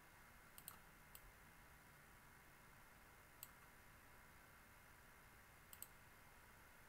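Faint computer mouse button clicks over a low steady hiss: a double click, a single click about a second in, another near the middle, and a second double click near the end.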